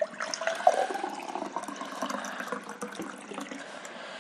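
Water poured from a plastic jug into a glass mug: a steady splashing pour as the glass fills, trailing off near the end.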